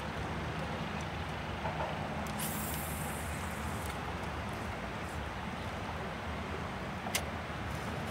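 Steady low engine hum, with a brief high hiss about two and a half seconds in and a single sharp click near the end.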